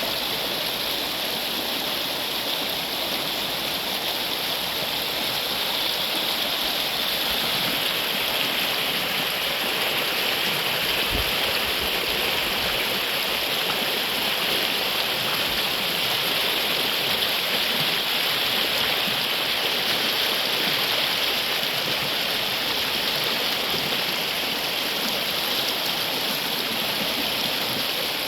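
Steady rush of running water, a continuous even noise with no breaks.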